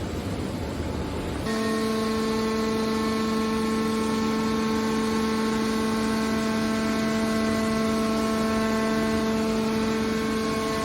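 Copper wire baler running with a low rumble; about a second and a half in, a steady pitched hum from its hydraulic power unit comes in and holds at an even pitch.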